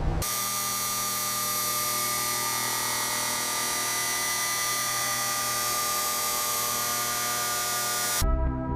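Power tool running steadily with a high, drill-like whine, used to break free the old corroded fuselage panel bolts. It starts abruptly and cuts off suddenly about eight seconds in.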